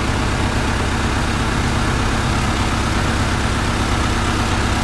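Diesel engine on a workshop stand running steadily at idle, with an even low hum and no revving.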